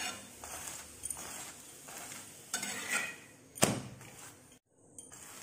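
Steel spatula scraping and pressing a paratha on a flat tawa griddle, with light clicks of metal on metal and one sharp clank of the spatula against the tawa about three and a half seconds in.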